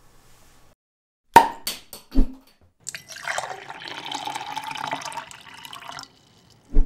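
A few sharp clicks and knocks, then about three seconds of running liquid, ending with a short low thump.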